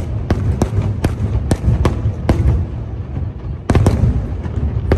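Aerial fireworks bursting in quick, irregular succession: about a dozen sharp bangs over a continuous low rumble, with a short lull in the middle before another cluster of bursts.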